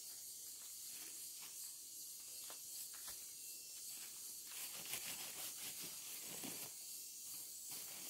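Quiet forest background: a steady high hiss of insects, with a few faint rustles and snaps of footsteps moving off through leaf litter.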